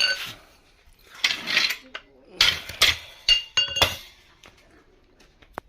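Metal parts and tools clanking and clinking in a series of separate knocks, some with a short metallic ring, and a sharp click near the end.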